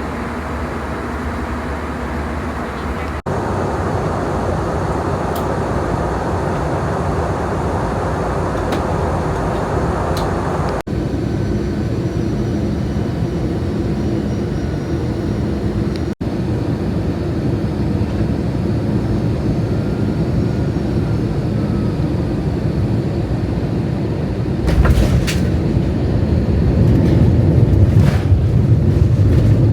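Steady airliner cabin noise from the engines and airflow, the low rumble growing louder near the end.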